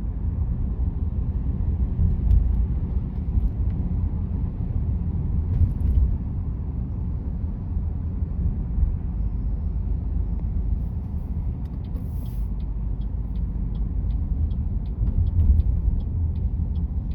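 Steady low road and tyre rumble heard inside the cabin of a moving car. About twelve seconds in, a regular light ticking starts and keeps going.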